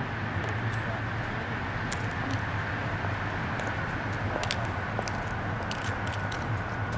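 A vehicle engine idling steadily, with a low hum and a few faint clicks.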